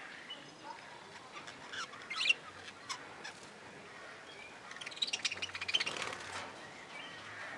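A flock of budgerigars chirping and chattering, with a sharp squawk a little after two seconds in and a busier run of rapid chattering notes around five to six seconds in.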